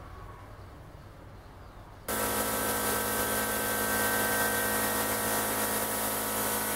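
Gravity-feed spray gun hissing steadily while spraying red polyurethane car paint. It starts suddenly about two seconds in, after a quiet stretch.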